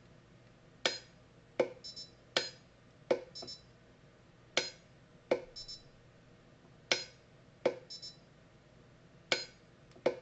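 Orion Pulse Impulse 30 pulse-arc welder firing at a steel piece: about ten sharp clicks in pairs, with short faint high beeps after several of them. The clicks come without the zap of a proper weld, which the welder puts down to an imperfect electrode angle or an air gap between the pieces of metal.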